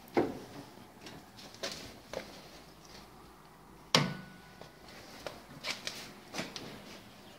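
Knocks and clicks from handling a manual metal-cutting band saw's vise and controls, the saw not yet running. A sharp knock comes just after the start and another about four seconds in, with lighter clicks between and near the end.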